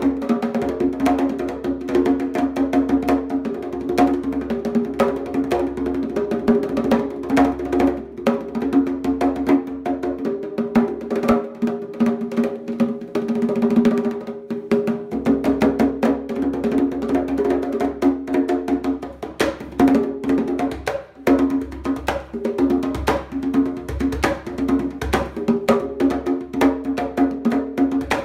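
Pair of wooden conga drums played with bare hands in a fast, continuous rhythmic pattern, the hands moving between the smaller and the larger drum.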